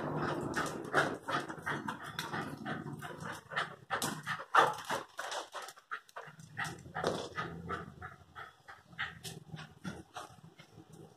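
Airedale and Lakeland terriers at play, making a rapid, irregular run of short sharp dog sounds, loudest about four and a half seconds in.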